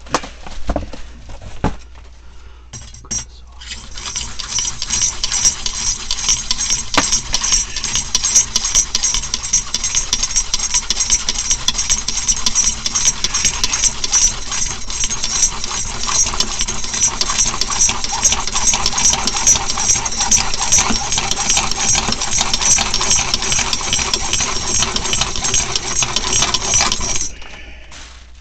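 Saw cutting through a PVC drain pipe, with steady sawing that starts about three and a half seconds in and stops abruptly near the end. A few knocks come just before it starts.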